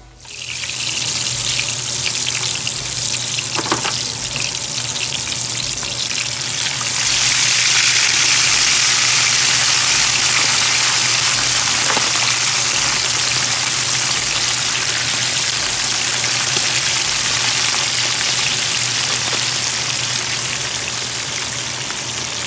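Whole fish frying in a pan of hot oil: steady sizzling and bubbling that gets louder about seven seconds in.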